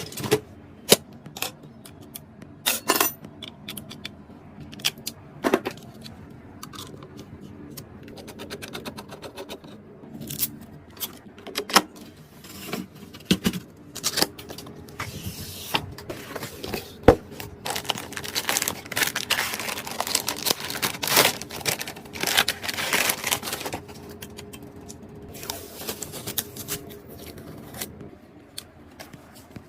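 Irregular clicks, clinks and knocks of small hard parts being handled, with a longer stretch of dense scraping and rattling about two-thirds of the way through.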